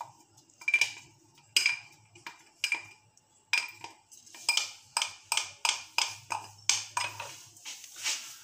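Repeated light clinks against a metal frying pan, each with a short ringing tone, coming two or three a second.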